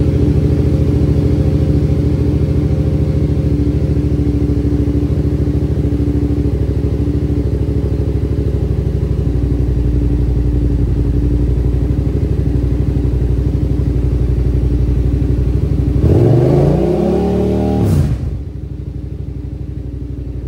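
Yamaha FZ-07's parallel-twin engine idling steadily after a fresh start. About sixteen seconds in it is revved once, rising and falling over about two seconds, then it settles back to a quieter idle.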